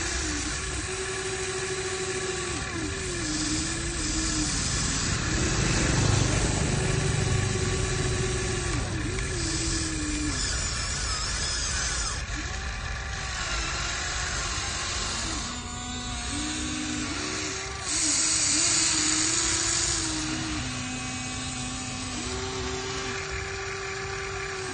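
Small electric motors and gearboxes of a radio-controlled excavator whining, their pitch rising, falling and stepping as different movements start and stop, over a gritty mechanical hiss that grows louder for a couple of seconds about three-quarters of the way through.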